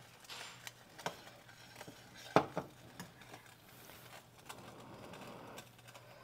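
A utensil clinking and scraping in a saucepan of gravy while it is stirred and seasoned: scattered light knocks, with one sharper clink about two and a half seconds in.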